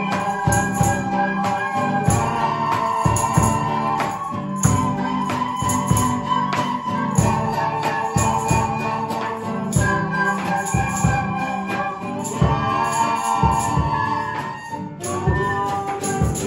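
A group of young children playing a Christmas carol melody in unison on soprano recorders, with acoustic guitar and a steady percussion beat underneath.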